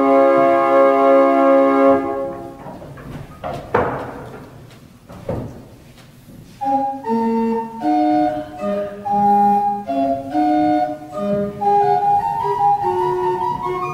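Pipe organ of 1751 by Martin Podkonický: a held chord releases about two seconds in and rings away in the church, followed by a pause with a couple of soft noises from the room. About six and a half seconds in the organ starts again with a melody in short notes over a moving lower part, in a Renaissance dance.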